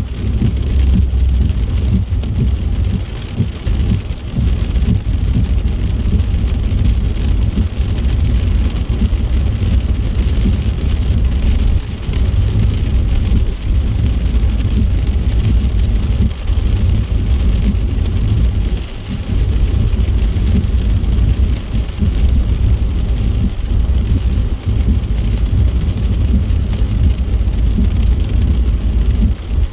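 Car driving on a motorway in heavy rain: a steady low road rumble with the hiss of rain and tyre spray, dipping briefly a few times.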